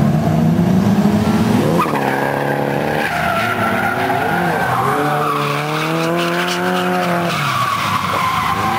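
Drift car's engine revving hard while its tyres squeal in a sustained slide through a hairpin. The engine pitch climbs about two seconds in, drops, then rises again and holds high for a couple of seconds before falling away near the end.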